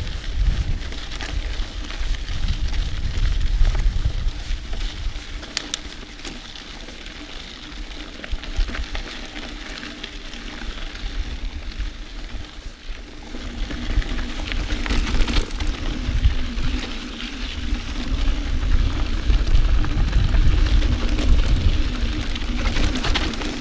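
Mountain bike riding along a dirt trail, heard from a camera on the bike: tyre noise and rattling, with heavy low rumble. It eases off for several seconds midway, then grows louder again, and a low steady hum comes in about halfway through.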